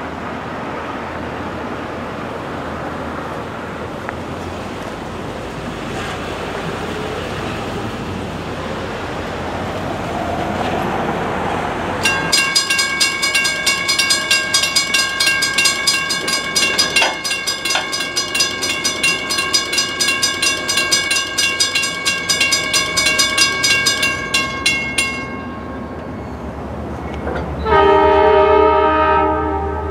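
A train approaching with a steady rumble. About twelve seconds in, a bell starts ringing in rapid repeated strokes and stops abruptly some thirteen seconds later. Near the end a diesel locomotive's multi-note air horn sounds one loud blast.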